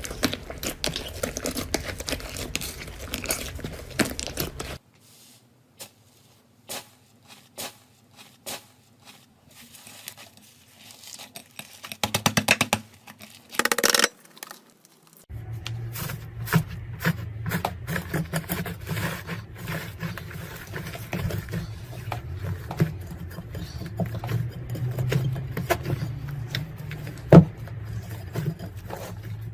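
Slime being squeezed, stretched and poked, with many sharp sticky pops and crackling clicks. The sound changes abruptly about five seconds in, going much quieter with scattered pops, and picks up again about fifteen seconds in over a steady low hum.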